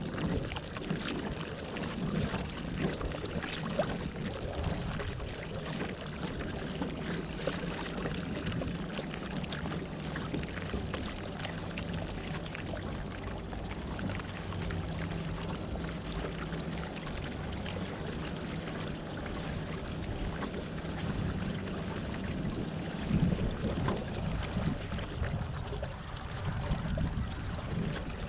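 Water rushing and splashing steadily around a pedal-powered waterbike as it moves along, with a faint low hum underneath.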